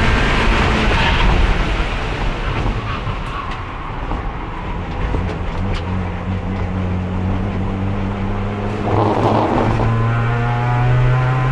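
Onboard sound of a racing car's engine, its gearbox held in fourth gear: the revs fall away early on and the engine then runs at low, fairly steady revs, with a short rushing noise about nine seconds in and a slight rise in revs just after.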